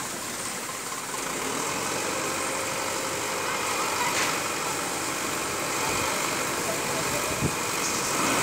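Engine of a small tipper truck running steadily while its hydraulic hoist raises the loaded bed to tip out sand; the sound grows a little louder about a second in.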